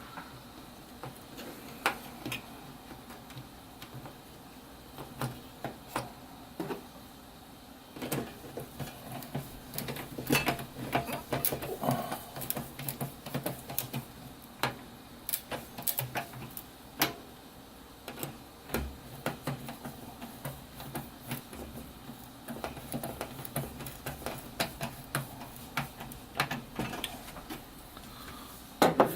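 Irregular clicks, taps and light rattles of a plastic PC case fan being handled and screwed back into the case.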